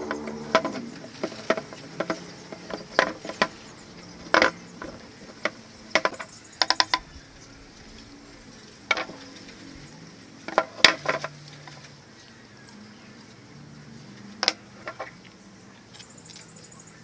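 Hard plastic clicks and knocks of PVC pipes and fittings being handled and pushed together on a workbench, irregular and spread out, with a quick run of three clicks about six and a half seconds in and the loudest knocks around eleven seconds in.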